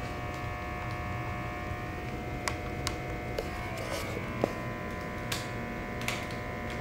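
A steady electrical hum made of several tones, with scattered light footsteps and knocks as a man walks down a stairwell.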